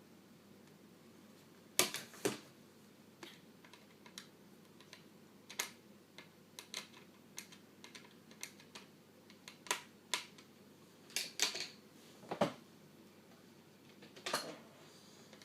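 Irregular plastic clicks and taps from a laptop's keyboard and palm rest being handled and worked loose, with a few louder knocks.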